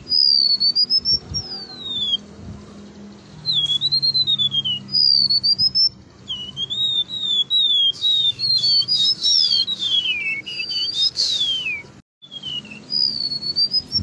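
Golden-bellied gerygone singing: phrases of high, thin whistled notes that waver up and down and slide downward, the third phrase faster and more tangled. The song breaks off briefly about twelve seconds in, then resumes.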